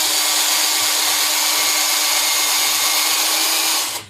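Electric drill running at a steady speed, spinning a typewriter's rubber platen against a sanding block to sand its worn grooves smooth. The motor cuts off abruptly near the end.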